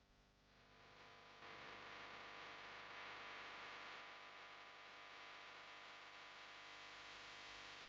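Faint steady electrical hum with hiss that swells in over the first second and a half, holds steady, then cuts off abruptly with a click at the end.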